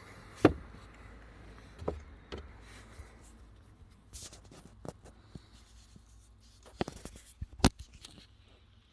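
Scattered sharp clicks and knocks of plastic car interior trim being handled inside the open glovebox recess, the loudest about half a second in and another a little before the end.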